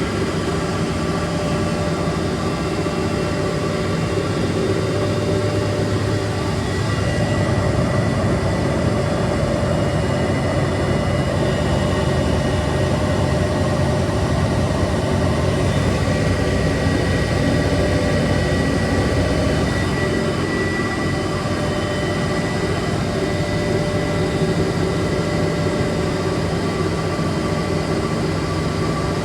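Large coin-laundry washing machines running: a steady machine hum with several held tones and a faint high whine that fades in and out.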